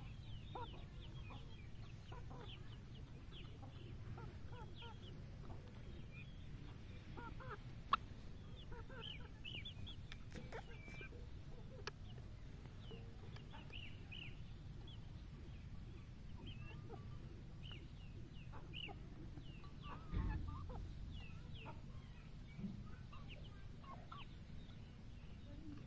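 A small flock of young chickens and turkeys giving short, scattered clucks and peeps over a low steady rumble, with a sharp click about eight seconds in and a thump about twenty seconds in.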